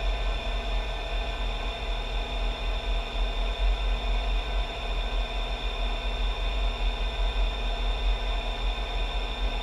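Hurco BMC 2416 CNC machining center milling a steel slab: a steady spindle whine over machining noise and a low rumble.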